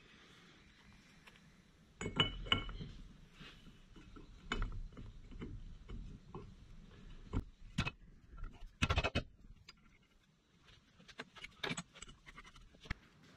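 Irregular metallic clinks and knocks of steel differential parts being handled on a workbench, with the pinion flange being fitted onto the pinion shaft near the end.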